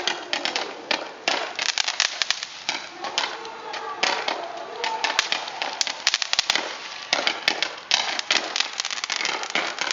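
Fireworks crackling: a dense, irregular run of sharp pops and snaps that goes on throughout, with voices underneath.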